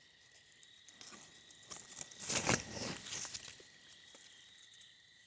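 Light rustling and snapping of leaves and twigs as the spicebush branches are handled, loudest about two and a half seconds in, over a steady high trill of crickets.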